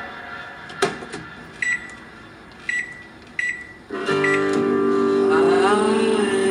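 Microwave oven keypad beeping four times as its buttons are pressed, after a single click just under a second in. Guitar music starts about four seconds in.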